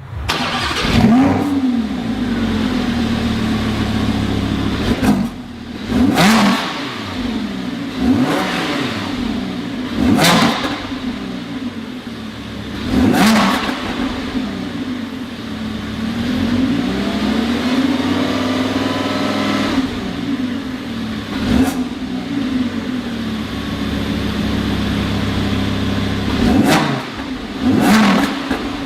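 Lamborghini Huracán LP610-4's V10 engine revved from idle, mostly in short, sharp blips, each rising and falling quickly in pitch, with one slower, longer rev near the middle and the engine idling steadily between revs.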